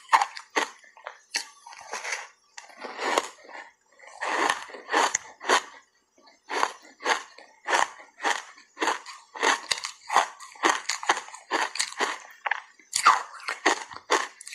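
Close-miked crunching and chewing of a refrozen ice bar coated in matcha powder: a long run of sharp crunches, about two to three a second, with a short pause near the middle.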